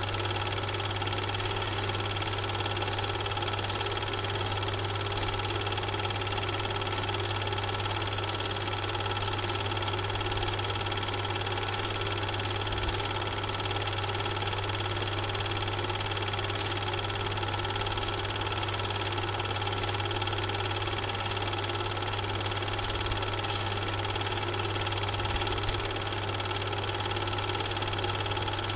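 Super 8 film projector running steadily through the transfer. The film itself is silent, so the trains on screen are not heard.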